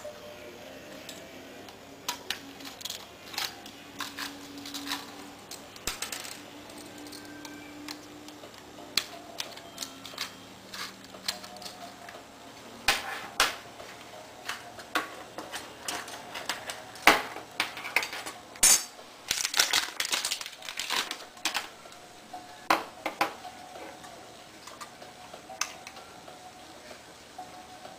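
Irregular clicks and small metallic clinks of tools, screws and laptop parts being handled. The clicks come sparsely at first, turn into a quick, dense run through the middle, then thin out again.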